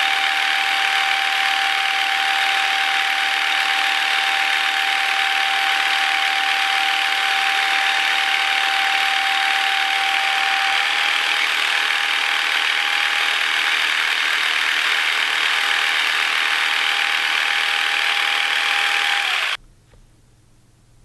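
Massage gun running steadily: a buzzing hum with one constant high whine, switched off abruptly near the end.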